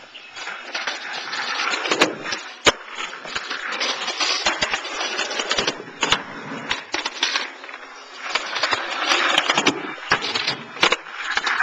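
Skateboard wheels rolling over concrete, a rough rumbling noise that swells and fades, broken by several sharp clacks of the board striking the ground or the wooden box.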